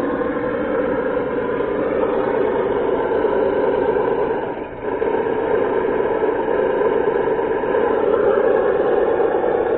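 Simulated engine drone from a sound box fitted to a Traxxas Summit RC truck, running steadily as the truck crawls, with a brief dip in level about halfway through.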